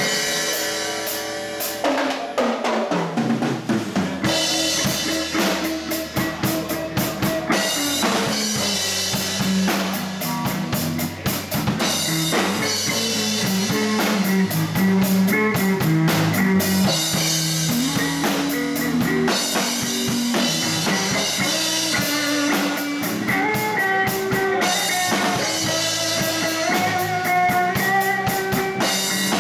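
Live blues band playing: drum kit to the fore, with electric bass and electric guitar.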